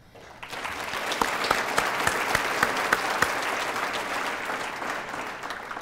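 Audience applauding: many hands clapping, building over the first second and dying away near the end.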